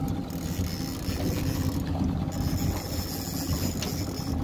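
Boat motor running steadily with a low drone.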